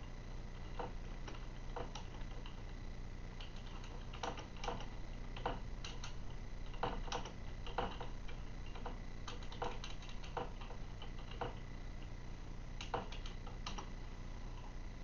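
Soft, irregular clicks and taps, roughly one or two a second, over a steady low background hum.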